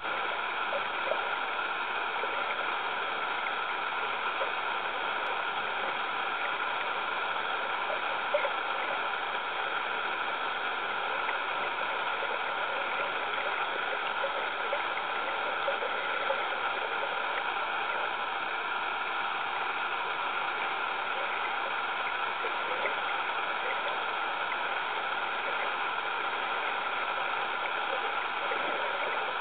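Steady underwater noise picked up by a submerged camera: an even rushing hiss of water with a few faint scattered clicks.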